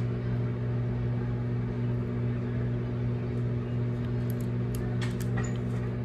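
Microwave oven running with a steady low hum, while a CD inside arcs and sparks, giving a few short crackles in the last couple of seconds.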